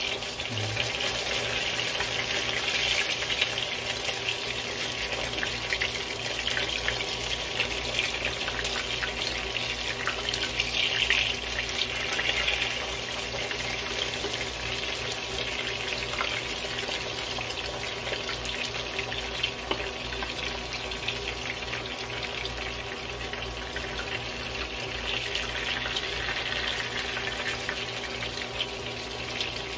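Spring rolls (lumpia Shanghai) frying in hot oil in a wok: a steady sizzle and crackle of bubbling oil, with a few light clicks of metal tongs turning the rolls.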